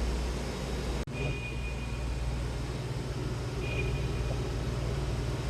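Small liquid transfer pump's motor running with a steady low hum, a thin high whine coming in twice briefly. The sound breaks off abruptly about a second in and resumes.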